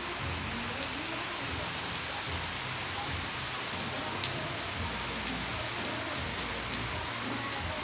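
Steady heavy rain hissing, with scattered sharp ticks of drops striking a hard surface close by.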